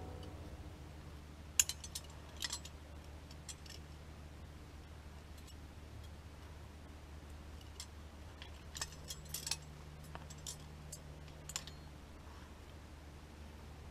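Climbing carabiners and a quickdraw clinking as the rope is clipped in: short sharp metallic clicks in two clusters, one about one and a half to three and a half seconds in and another about nine to eleven and a half seconds in.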